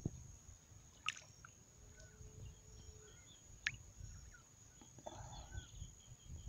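Faint lapping and dripping of shallow river water stirred by a small golden dorado held in it for release, with a few sharp drip-like ticks. A steady thin high whine and faint short chirps sit behind it.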